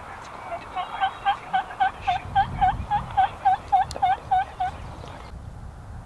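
A run of about sixteen turkey yelps, three or four a second, each a short hooked note. The series builds quickly in loudness over the first second, then holds steady until it stops almost five seconds in. A single sharp click falls near the end of the run.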